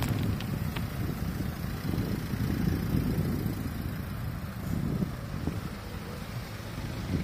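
Low, uneven rumble of wind and road noise picked up while riding a bicycle, with a few light clicks in the first second.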